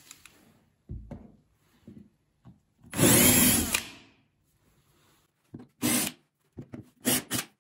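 Power drill with a twist bit boring into a wooden CNC spoilboard for about a second, enlarging a hole for an embedded nut, with a whine from the drill. A few short bursts follow near the end.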